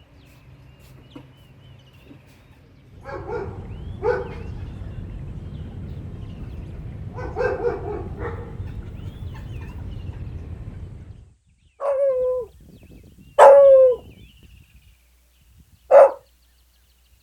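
Golden Retriever puppies yipping and barking: a few soft yips, then three short, sharp barks near the end. Faint birdsong chirps behind them.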